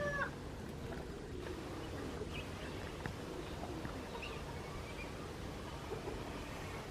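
Outdoor ambience: a steady low background rumble with a short falling bird call right at the start and a few faint bird chirps scattered after it.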